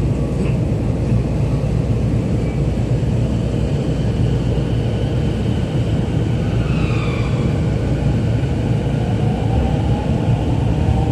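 Toei 10-300 series electric subway train pulling out of a station, heard from inside the car: a steady low rumble of wheels and running gear, with the electric traction motors' whine rising in pitch as the train picks up speed, plainest in the last few seconds.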